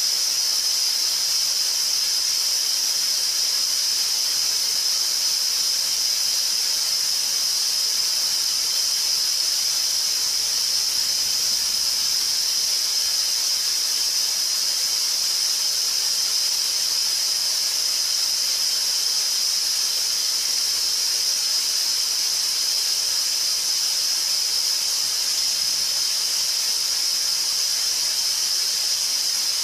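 Steady static hiss, high-pitched and unchanging in level.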